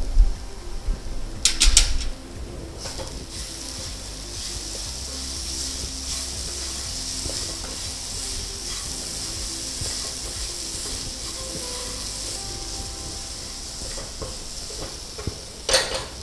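Grated raw plantain sizzling in a nonstick frying pan as it is stirred with a spatula, with a few sharp knocks of the spatula against the pan about two seconds in and again near the end.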